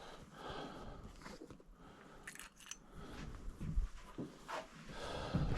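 Faint handling noises of small motorcycle parts and hardware, with a few light clicks and rustles.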